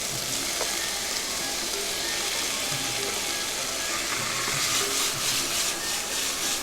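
Chicken pieces and garlic sizzling in hot oil in a pan, a steady frying hiss. It gets louder and more crackly for a couple of seconds after about four and a half seconds, as the pan is stirred.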